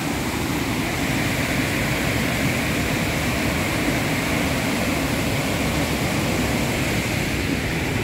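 Waterfall rushing steadily: white water pouring over a wide rock ledge in an unbroken roar.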